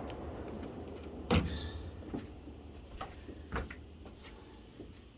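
A few short knocks and clunks, the loudest about a second and a half in, over a low steady hum.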